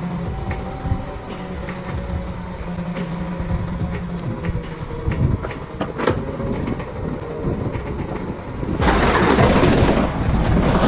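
Heavy machinery running steadily, with scattered knocks and clanks. About nine seconds in, a sudden, louder rushing noise starts.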